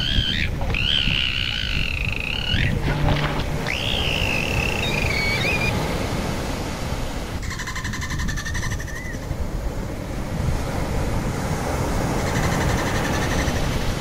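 Bottlenose dolphins whistling underwater. There are three warbling whistles in the first six seconds, the third sliding slightly downward, then a buzzing burst of rapid clicks about seven and a half seconds in and a fainter one near the end, over a steady low rumble of water noise.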